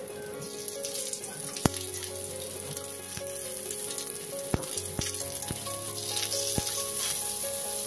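Sliced onion and chopped garlic sizzling in oil in a stainless steel frying pan, with a steady hiss. A spatula knocks sharply against the pan several times as it stirs.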